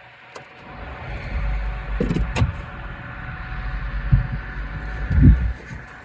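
Low rumble of a vehicle engine, with a few sharp clicks about two seconds in and heavy low thumps near the end, the loudest just after five seconds.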